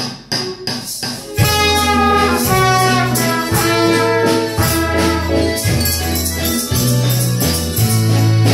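Children's school ensemble playing a tune. Trumpets carry the melody, with tambourine and metallophones, over a steady bass line. It opens with a few evenly spaced beats before the full band comes in about a second and a half in.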